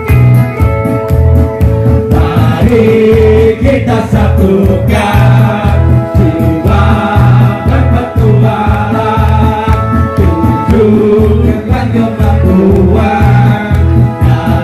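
Loud amplified music with a steady beat, with men singing over it through microphones and a PA system.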